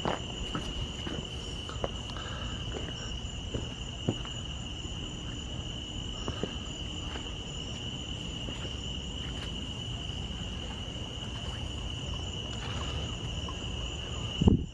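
Crickets trilling steadily in one unbroken high band over a low rumble, with a few faint scattered clicks and a short knock near the end.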